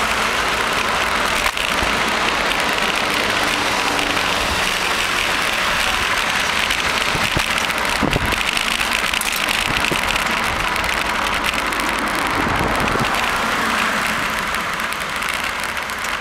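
Steady rushing of wind and road noise at a camera riding on a moving bicycle, easing a little near the end as the bike slows.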